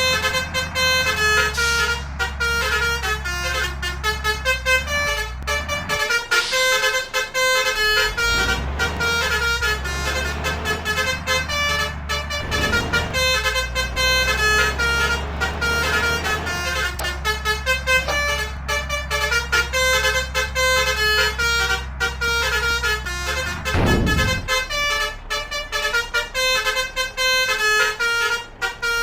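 Bus 'telolet' basuri horn playing a melody of short, quickly changing notes, with the bus engine running low beneath.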